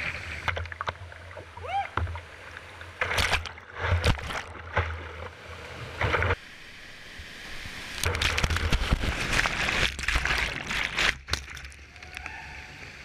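Whitewater rapids rushing and splashing over a kayak's bow-mounted action camera, with sudden loud surges as waves break over it. The sound drops off sharply about six seconds in, and crashing water surges back about two seconds later for a long stretch.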